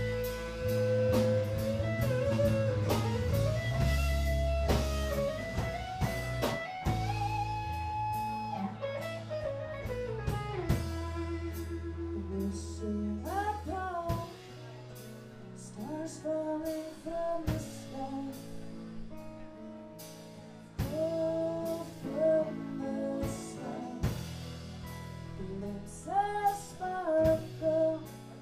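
Live band playing: electric guitar lead over electric bass, acoustic guitar and drums, with long held guitar notes in the first half and a woman singing from about halfway on.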